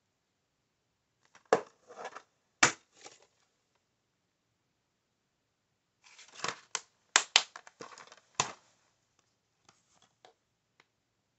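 Plastic Blu-ray case being handled and snapped open and shut: two sharp plastic clicks early on, then a quick run of clicks and rattles with some rustle, and a few faint ticks near the end.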